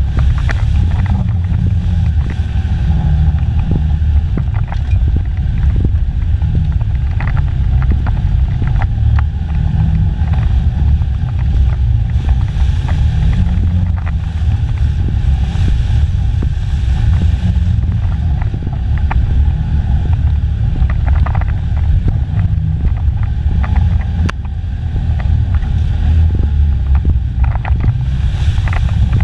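Stock Polaris ACE 570's single-cylinder engine running steadily as it drives a muddy trail, heard from inside the cab, with scattered short knocks and rattles from the rough ride.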